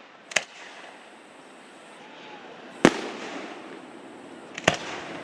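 Aerial firework shells bursting in a fireworks display: three sharp bangs about two seconds apart, the middle one loudest.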